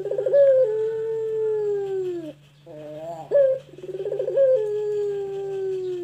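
Barbary dove (puter) cooing: two long coos, each opening with a rolling stutter and then drawing out into a long steady note that drops in pitch at its end, with a short wavering call between them. A faint steady low hum runs underneath.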